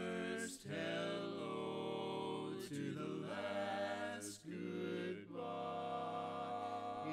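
Male barbershop quartet singing a cappella in four-part harmony, holding long sustained chords with short breaks between phrases.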